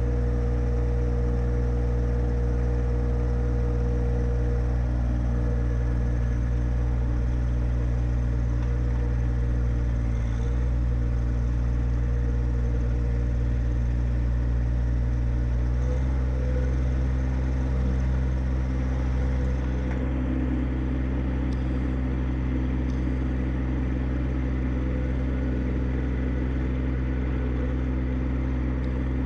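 John Deere 1025R subcompact tractor's three-cylinder diesel engine running steadily. Its note shifts slightly about halfway through.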